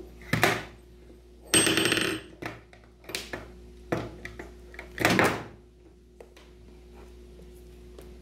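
Tools being handled in a cardboard box: a string of about five irregular rustles, clatters and knocks, the longest and densest a little after a second and a half in, over a faint steady hum.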